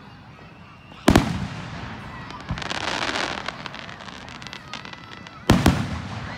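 Aerial fireworks bursting: a sharp double bang about a second in, a stretch of crackling in the middle, and another sharp double bang near the end.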